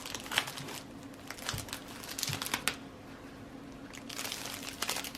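Packaging crinkling and rustling in bursts as a wrapped item is unwrapped by hand, busier near the end.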